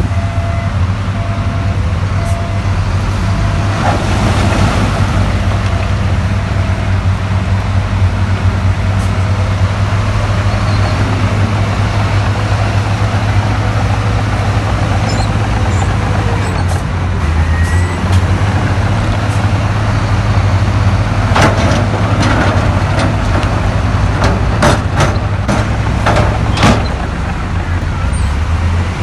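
Heavy diesel engine of earthmoving machinery running steadily. In the last third, a run of sharp clanks and knocks, like steel and stone striking.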